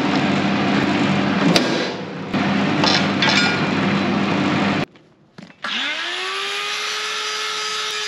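Electric power tool running with a harsh cutting noise and a steady motor hum, dipping briefly about two seconds in. It stops sharply about five seconds in, and after a short silence its motor spins up with a rising whine, then runs steadily.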